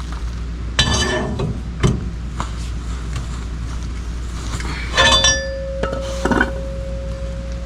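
Steel-on-steel clanks of a pry bar working a steel receiver hitch bracket, bending it down to line up the bolt holes: four sharp clanks, the third, about five seconds in, ringing on for a couple of seconds.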